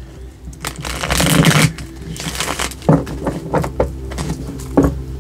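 Tarot cards being shuffled and pulled: a rush of card noise about a second in, then a few sharp snaps and taps as cards are drawn and laid down.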